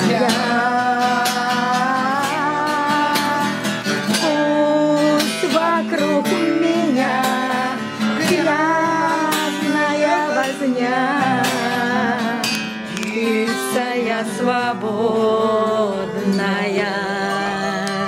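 A man singing a Romani (Gypsy) song to his own strummed steel-string acoustic guitar, the voice drawn out in long, wavering held notes over steady strumming.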